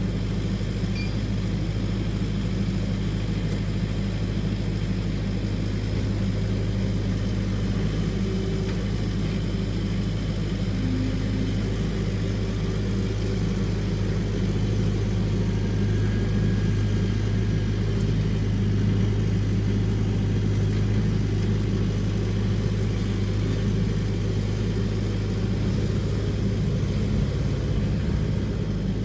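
An engine running steadily at an even speed, a low constant hum.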